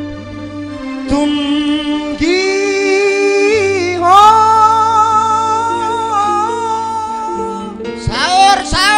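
A singer holds long, wavering notes into a microphone over a live band's steady accompaniment. The voice comes in about a second in, and a new phrase begins near the end.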